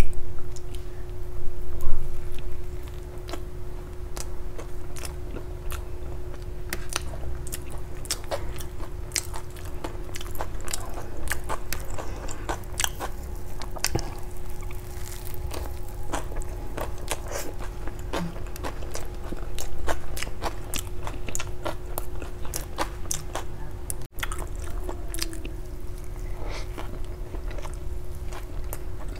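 Close-miked eating of a bun pizza, a soft bread bun filled with melted cheese: bites, chewing and many wet mouth clicks. The loudest bites come in the first two seconds. A steady faint hum runs underneath.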